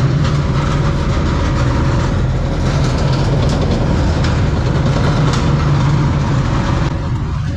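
Heavy machine's diesel engine running steadily under load while a metal culvert is dragged along the road, with a rough grinding scrape over the engine hum. The sound drops off abruptly near the end.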